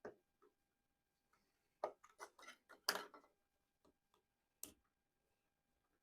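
Small hand tools and hard parts clicking and clattering while a speaker is being taken out of its housing, with a quick run of clicks about two to three seconds in and one more about four and a half seconds in.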